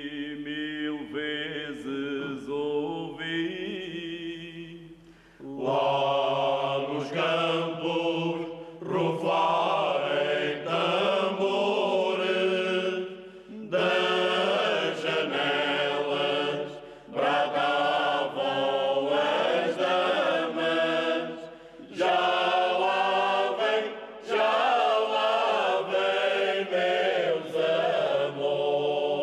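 Choir-like voices chanting in long sung phrases, each several seconds long, with brief breaks between them.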